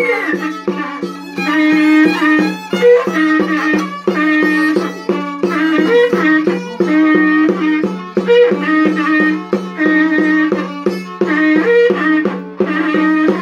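Andean folk trio: a violin plays the melody over the steady low note of a long cow-horn trumpet (wakrapuku), while a small tinya frame drum beats time.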